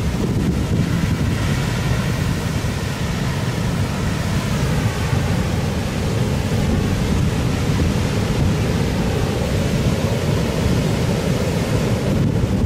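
Heavy surf from an approaching typhoon, pounding and washing on the shore, with wind buffeting the microphone in a steady low rumble.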